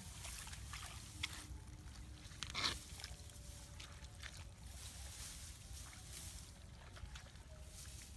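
Grass stalks rustling as hands push and search through a grassy, muddy field, with a brief louder rustle about two and a half seconds in, over a steady low rumble.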